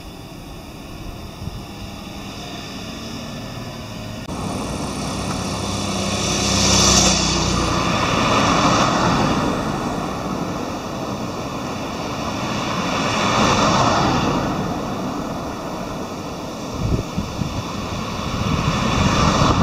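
Cars passing on a road, each swelling and fading as it goes by, twice, with another car approaching near the end. Before them, a few seconds of quieter steady hum.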